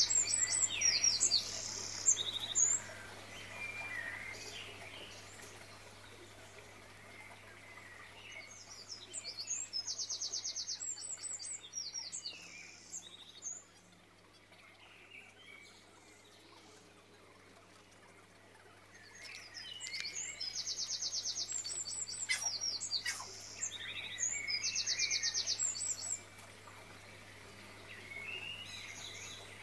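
A songbird singing in spells of rapid high trills and chirps, three times about ten seconds apart, with quieter stretches between.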